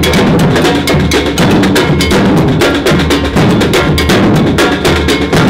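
A street drum group playing large bass drums and snare drums together in a fast, dense rhythm.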